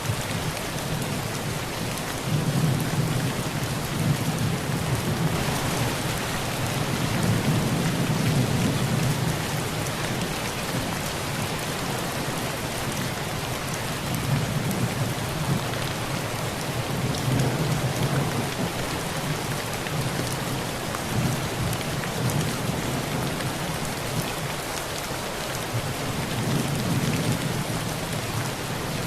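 Heavy rain falling steadily on a tin roof, with low rolls of thunder that swell and fade several times.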